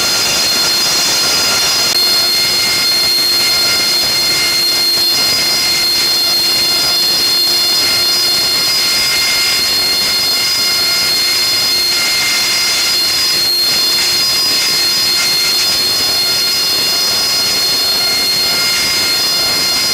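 AV-8B Harrier's Rolls-Royce Pegasus turbofan running steadily at close range, a loud rushing noise with a high-pitched whine of several steady tones.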